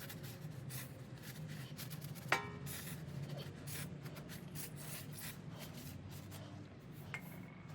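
Faint rubbing and handling noises of hands working on washing machine parts, with one sharp click about two seconds in, over a steady low hum.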